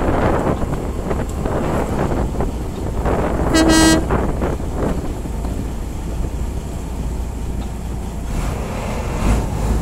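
A boat's horn gives one short toot about three and a half seconds in, over steady wind on the microphone and the low rumble of a boat under way.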